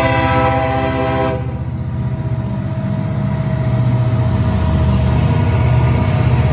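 Diesel freight locomotive's horn sounding a chord at the crossing, cutting off about a second and a half in. The locomotives' diesel engines then run past at close range with a steady low rumble.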